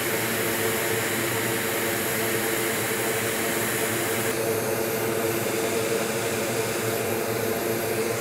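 Steady rush of air and motor hum from a bench fume extractor at a soldering station, running on; the hiss dulls slightly about four seconds in.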